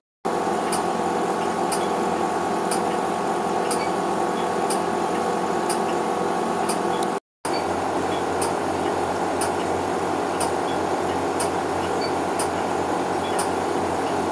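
Steady mechanical hum of a rack of air-quality gas analyzers and their pumps and fans, with a faint tick repeating about every 0.8 seconds. The sound cuts out completely for a moment twice.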